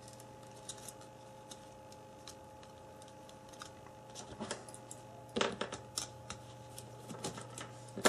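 Plastic housing of a Samsung Galaxy Ace S5830i clicking as its clips are pried apart: scattered small clicks and snaps, sparse at first and coming thick and fast from about halfway, over a steady faint hum.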